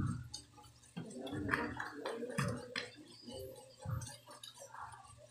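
Faint, indistinct voices murmuring, with a few light clicks and taps.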